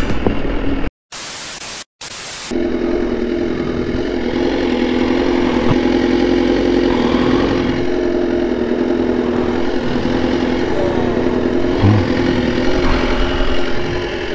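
BMW S1000RR's inline-four engine running at steady revs while riding, heard through the camera's microphone with wind rush. It opens with two short bursts of static broken by dropouts to silence.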